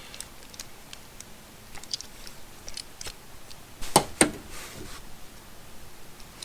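Small plastic swivel camera mounts and their plastic bag being handled: light scattered clicks and rustles, with two sharp plastic clicks close together about four seconds in.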